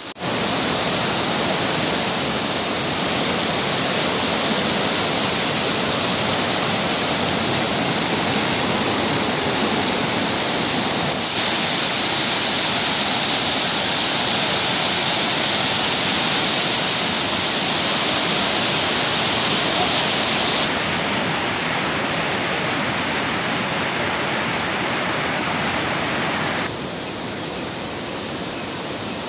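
Muddy floodwater rushing: a steady, hissing rush of water flowing down a village lane and pouring through gaps in a dry-stone wall. It is loudest where it pours through the wall, and its level changes abruptly at cuts about 11, 21 and 27 seconds in.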